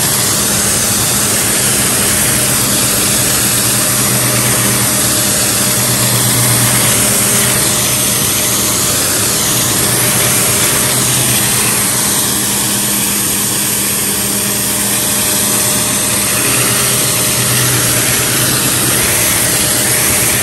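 Pressure washer running, its motor humming steadily under the loud hiss of the water jet spraying against a car's side.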